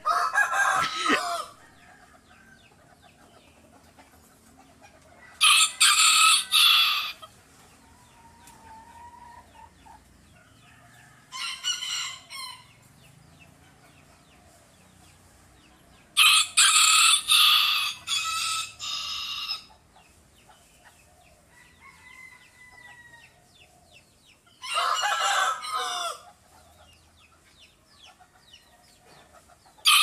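A rooster crowing repeatedly, about five crows each a second or two to three seconds long, coming every five to six seconds, with another crow beginning at the very end.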